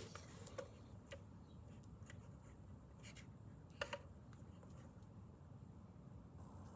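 Faint scattered clicks and light taps of small hard parts being handled, with two slightly louder taps about three and four seconds in, over a low room hum.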